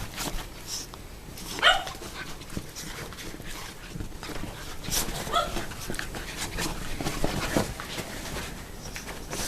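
Puppy and Shiba Inu play-fighting: a few short yips, the loudest about a second and a half in, with scuffling noises between them.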